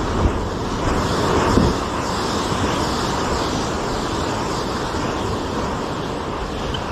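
Sea surf washing steadily on the shore, with wind buffeting the microphone; the wash swells briefly about a second and a half in.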